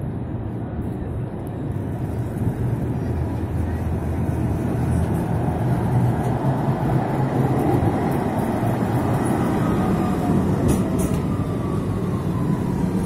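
Tram pulling into a platform and braking to a stop: a rumble of steel wheels on the rails that grows louder as it passes close. A falling electric whine comes in during the last few seconds as it slows.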